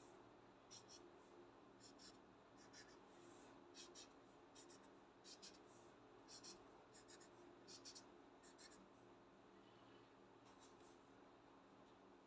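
Felt-tip marker drawing short strokes on paper: a run of brief, faint scratches, with a lull near the end.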